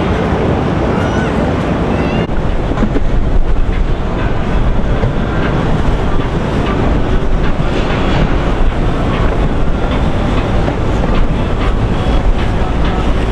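Motorboat running on the water, with wind buffeting the microphone and water rushing. There is a change in the sound about two seconds in.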